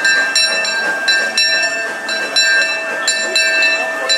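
Steam locomotive bell ringing steadily on the C.K. Holliday, struck about two to three times a second with its tones ringing on between strokes.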